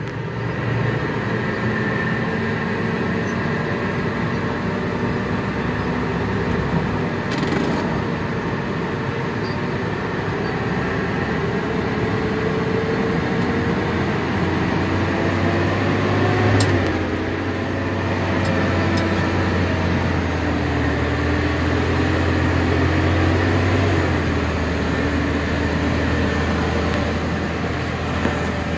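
Off-road dump truck's diesel engine running steadily, heard from inside the cab as the truck drives downhill over rough dirt. The engine note shifts a little in pitch along the way, and there are a couple of sharp knocks.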